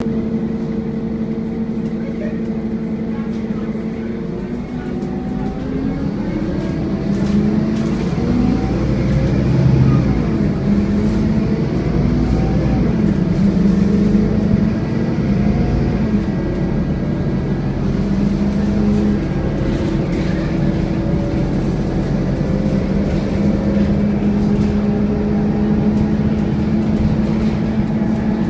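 Scania N230UD double-decker bus running with its 'hoovering' sound, a steady vacuum-cleaner-like whine. The pitch glides up and down for about ten seconds from around five seconds in, as the bus changes speed, then settles back to a steady whine.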